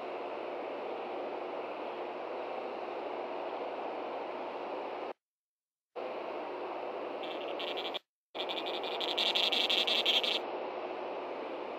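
Osprey giving a rapid series of high, shrill alarm chirps for about three seconds, starting a little past the middle, over a steady background hiss. The audio cuts out completely twice for a moment.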